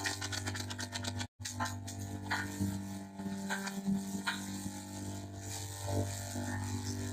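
Microwave oven running: a steady low electrical hum with a rising and falling buzz and scattered light clicks and rattles, cut off briefly about a second and a half in and distorted by added audio effects.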